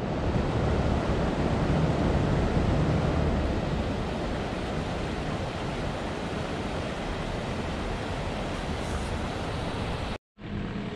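Steady rush of river water flowing down a stone-walled channel, cutting off abruptly about ten seconds in.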